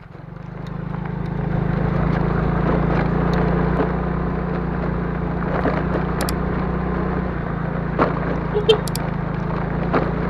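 A small engine comes on and builds up over the first couple of seconds, then runs steadily with a low hum, with a few light clicks over it.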